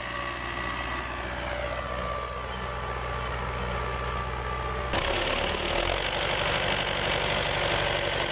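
Tractor engine running steadily as the tractor pulls rotary potato weeders along the rows. About five seconds in, the sound cuts abruptly to a louder, closer engine with more noise.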